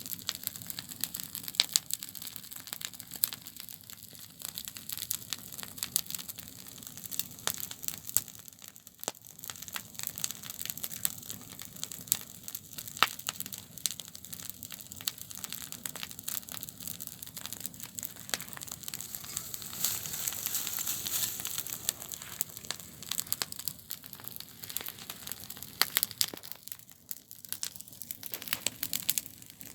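Campfire burning, crackling with many sharp pops over a steady hiss; the hiss swells for a couple of seconds about two-thirds of the way through.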